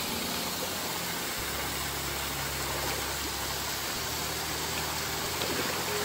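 Waterfall water rushing, a steady, even rush with no breaks.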